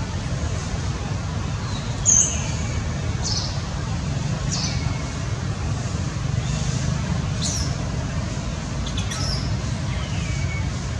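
An infant monkey gives short, high-pitched squeals, each falling in pitch, about six times, the first about two seconds in the loudest. A steady low rumble runs underneath.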